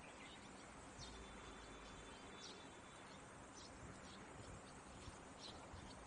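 Near silence: faint open-air background hiss with a few short, high chirps scattered through it.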